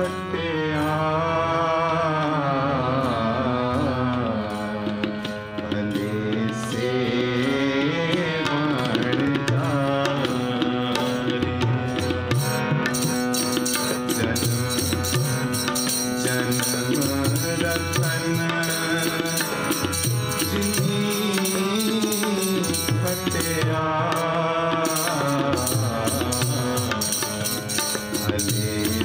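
Sikh kirtan: harmonium chords and tabla playing, with a voice singing a long, gliding melody over them. The tabla strokes grow denser about halfway through.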